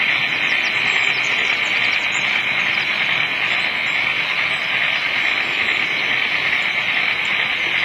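An OO gauge model train running along the track, heard from a camera riding on it: a steady hiss of wheels rolling on the rails and motor noise, with faint light ticks.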